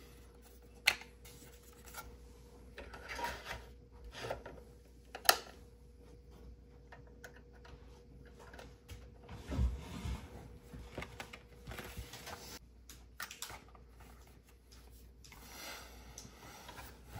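Hands handling hardware and packaging: two sharp clicks, bursts of rustling, and a few dull thumps and small knocks.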